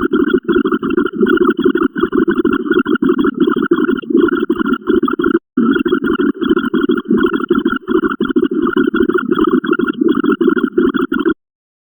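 Rapid, unbroken stream of short synthetic sound effects, several a second, playing as a binary counter steps up, with a brief break about five and a half seconds in and another near the end.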